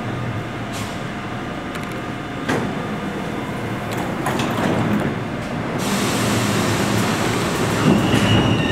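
NYC subway train standing at the platform with a steady hum, one sharp click a couple of seconds in, then growing louder from about six seconds in as it starts to pull out, with a high whine rising near the end.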